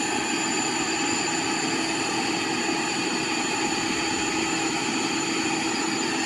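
Intex air mattress's built-in 120 V electric pump running steadily as it inflates the mattress, powered through a small inverter from a portable battery pack. A steady hum with a constant high whine over it.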